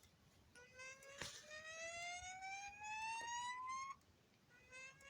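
System Sensor SpSW fire alarm speaker sounding a slow whoop alert tone: a buzzy tone that rises steadily in pitch for about three seconds, cuts off, then begins a second rising sweep near the end, the alert that comes before a voice evacuation message. A sharp click sounds a little after one second in.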